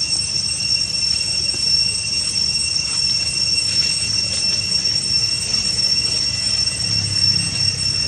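Cicadas droning steadily in two high, unbroken tones, over a low rumble.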